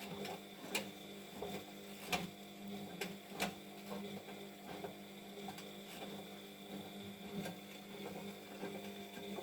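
Siemens front-loading washing machine in its early wash stage, the drum motor giving a steady hum as the drum turns, with a few light knocks.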